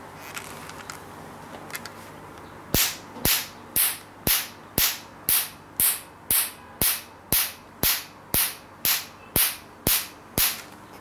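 Q-switched Nd:YAG laser handpiece firing, a sharp snap with each pulse, about two a second in an even train of sixteen, starting a few seconds in and stopping near the end.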